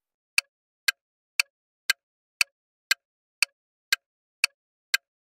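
Clock-style tick sound effect of a quiz countdown timer, short sharp ticks about two a second, evenly spaced.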